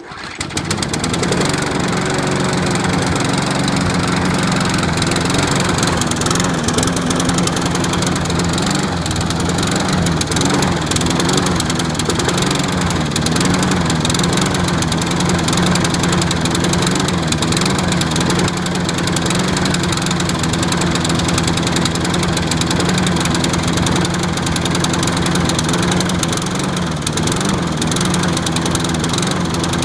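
Briggs & Stratton petrol engine of an Atco Qualcast Trojan 18S self-propelled lawn mower starting and then running, its revs going up and down rather than holding steady. The owner describes this as rough running, with the revs rising and then dropping off.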